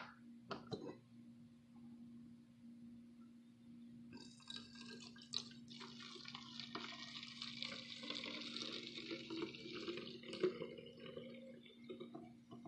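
Strained garlic-water solution pouring from a metal cup into a plastic spray bottle: a faint trickle and splash of liquid filling the bottle. It starts about four seconds in and tapers off near the end, after a few light clicks early on.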